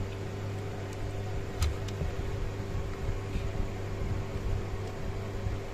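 A steady low hum with a light hiss, and a single faint click about a second and a half in.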